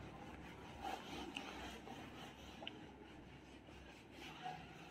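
Pen writing: faint scratching and rubbing with a few light ticks.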